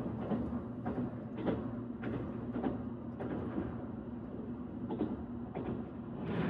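Train running on rails: a steady low rumble with a faint hum and a string of light knocks about every half second, like wheels passing over rail joints.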